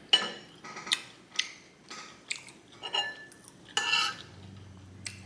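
A utensil clinking and scraping against a dish, about six sharp clinks with a slight ring as food is gathered from the bowl. A low steady hum starts near the end.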